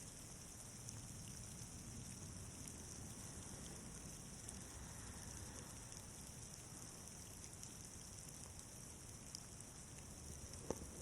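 Faint, steady patter of falling snow, with a few light ticks scattered through it.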